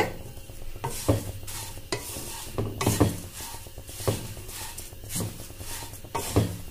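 Dry-roasting paper poha (thin flattened rice) being stirred with a wooden spatula in a non-stick pan: the flakes rustle and scrape against the pan in several irregular strokes. The dry, rustling sound is the sign that the flakes have turned crisp.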